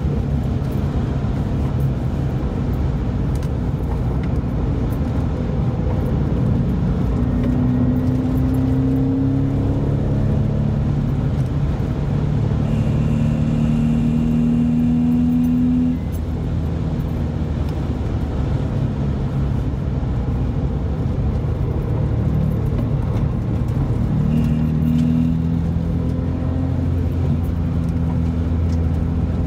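Porsche 911 (996) water-cooled flat-six engine pulling along a winding road, rising in pitch several times as it accelerates and dropping suddenly about halfway through, over steady tyre and road noise heard from inside the car.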